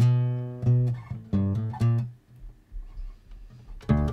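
Acoustic bass DI track playing short plucked notes, rendered binaurally for headphones by Dolby Atmos while the source is panned from the left side up overhead. The notes stop for about a second and a half past the middle, then resume.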